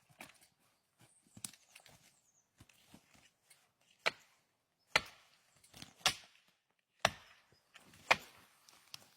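Wood being struck with sharp chopping blows, about one a second for five strokes from about four seconds in, with lighter knocks and cracks before them.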